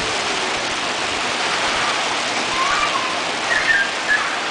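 Steady rushing water. Children's high voices call out faintly a few times in the second half.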